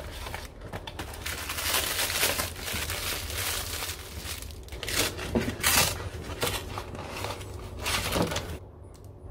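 Plastic and paper packaging crinkling and rustling in irregular handfuls as a parcel of products is unboxed by hand, over a steady low hum.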